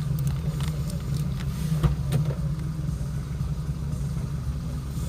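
An engine running steadily with a low hum, with a few faint clicks over it.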